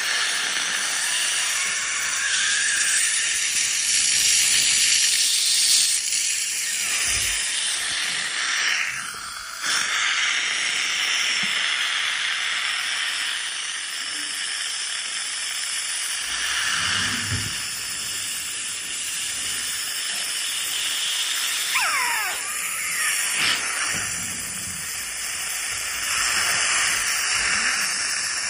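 Ultrasonic dental scaler running with a steady hiss of water spray as its tip chips tartar off the lower front teeth of a patient with pyorrhoea. The hiss dips briefly about nine seconds in.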